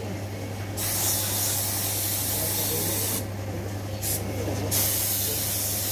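Paint spray gun hissing as it sprays, its hiss stopping three times for under a second each as the trigger is let go, over a steady low hum.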